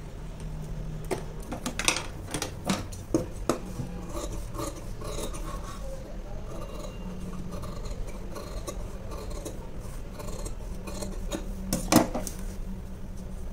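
Tailoring scissors snipping through a thin paper pattern, in a run of short cuts with the paper rustling as it is turned. A sharper click comes near the end.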